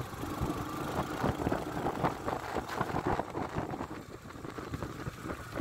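Motorcycle engine running while riding, heard from the bike itself, with many irregular knocks and rattles over it; it gets quieter after about four seconds.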